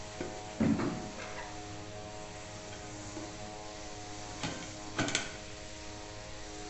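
A few knocks and clicks of a speaker being handled and set into the freshly cut hole in an aluminium mini keg. The loudest knock comes about a second in and two lighter ones near the end, over a steady background hum.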